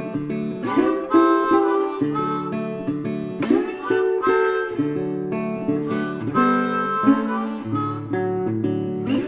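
Background music: a harmonica melody over strummed acoustic guitar, in a steady beat.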